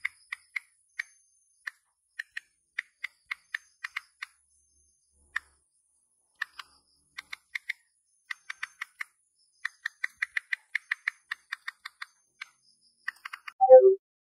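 iPhone on-screen keyboard clicks as a text message is typed: short sharp ticks in irregular runs of several a second, with short pauses between words. Near the end, a quick falling three-note chime sounds as the message is sent.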